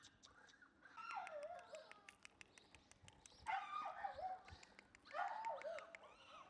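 Black Shiba Inu puppy whining, three high calls of about a second each that slide down in pitch and waver, with faint clicks in between.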